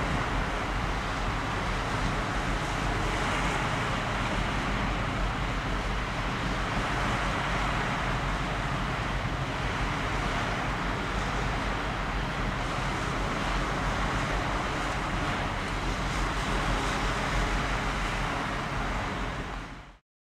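Steady outdoor background noise across open water: a constant hiss over a low rumble, without any distinct event, that cuts off abruptly near the end.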